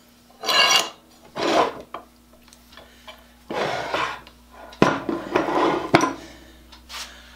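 Cast swivel base of a small Japanese 4-inch bench vise being turned around by hand on its loosened mount, metal scraping and clattering in several short bursts. Two sharp knocks come in the second half as the vise is handled and set on a wooden bench.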